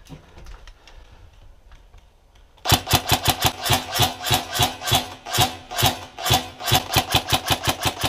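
Tokyo Marui HK416 DEVGRU airsoft electric gun firing a long string of rapid shots, about five a second, each a sharp mechanical clack. The shooting starts about two and a half seconds in, after near quiet.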